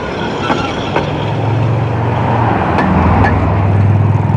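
Steady rolling noise with a few sharp clicks, joined about a second in by a low, steady motor-vehicle engine hum that grows louder toward the end.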